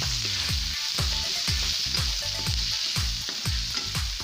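Sliced onions sizzling in hot oil in a kadhai, stirred with a slotted spatula. Under it runs background music with a steady beat of deep thumps about twice a second.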